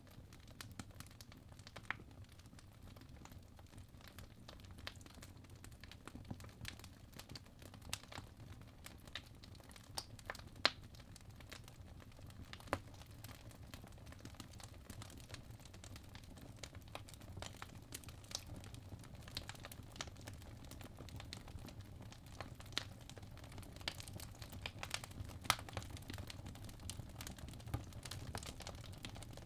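Fireplace fire crackling: irregular sharp pops and snaps, a few of them louder, over a low steady rumble of the burning.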